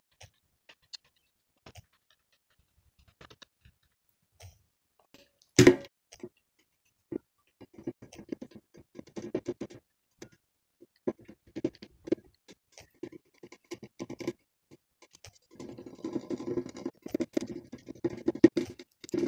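Light, scattered taps and clicks of a paint marker dabbing dots onto a painted cup, with one louder knock about six seconds in; the taps come thicker in the second half.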